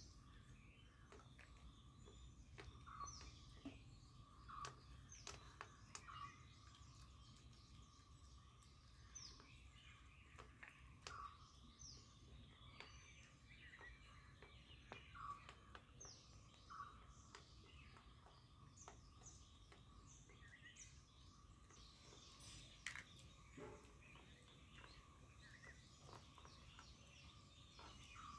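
Faint scattered crunches and clicks of a puppy eating dry kibble from a stainless-steel bowl, with small birds chirping now and then.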